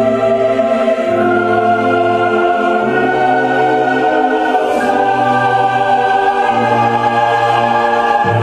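Background music: slow choral music with sustained voices over a bass line that changes note about every second and a half.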